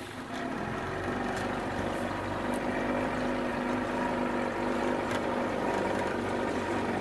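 1990 Evinrude 25 HP two-cylinder two-stroke outboard motor pulling the boat away. It gets louder about half a second in, then runs steadily at part throttle.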